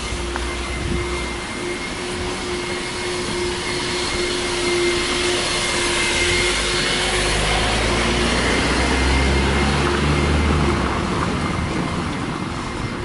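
Canister vacuum cleaner at a car wash running steadily, with a constant hum and hiss that grow loudest about halfway through. A low rumble joins in during the second half.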